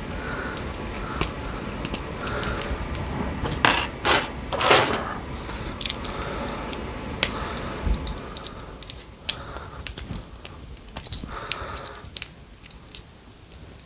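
Small parts and hand tools clicking and tapping as the bushings are popped out of an RC car's steering bell crank, with a few louder scraping rustles about four seconds in.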